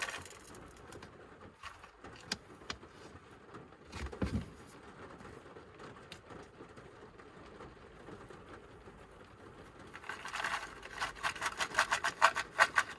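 Small shaker of popcorn seasoning shaken over a cup of popcorn: a quick run of rattling clicks starting about ten seconds in. Before that, only faint scattered clicks as the popcorn is handled, and a short low sound about four seconds in.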